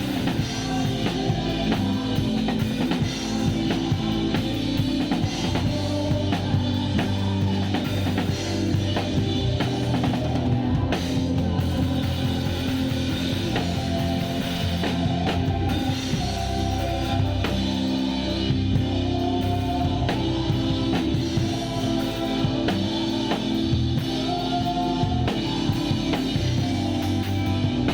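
Drum kit played with a live band, its kick, snare and cymbal hits loud and close over sustained bass and keyboard notes.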